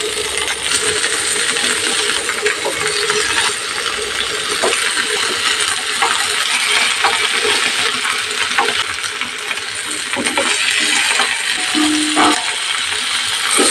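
Mustard oil sizzling and crackling steadily in a flat tawa under banana-leaf-wrapped parcels, with scattered light pops and clicks.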